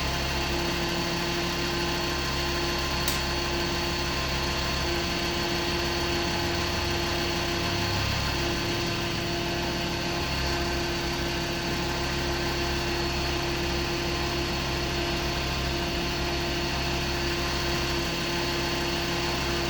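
Ford Mondeo XR5's freshly rebuilt 2.5-litre turbocharged five-cylinder engine idling steadily in its first run after the rebuild, with a single sharp click about three seconds in.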